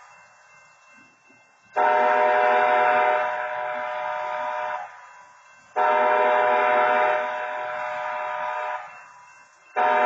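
Train horn at a grade crossing sounding a chord of several steady tones: two long blasts of about three seconds each, a second apart, with a third blast starting just before the end.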